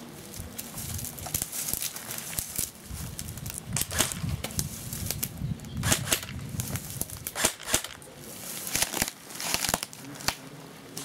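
Rustling and crackling in leafy undergrowth, with irregular sharp cracks scattered through it.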